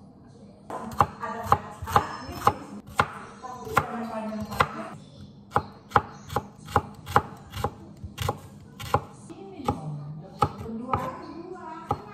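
Chef's knife chopping shallots, then green chilies, on a wooden cutting board: sharp knocks of the blade on the board, about two a second, starting about a second in.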